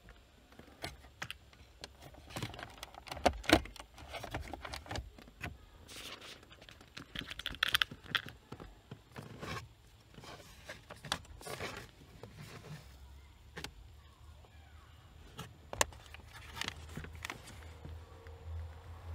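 Hands working a thin cable behind a car's dashboard trim panels: scattered sharp plastic clicks and knocks with bursts of rustling and scraping.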